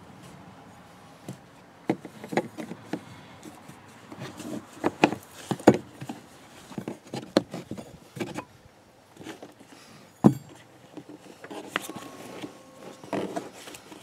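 Irregular clicks, taps and knocks of hands and a pry tool working a car's plastic pillar trim cover and seat belt hardware, with sharp knocks about six and ten seconds in.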